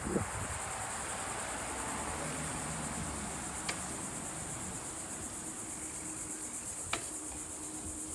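A steady, high-pitched chorus of insects in the trees, with a low rushing noise beneath it. Two sharp clicks come about three and a half and seven seconds in.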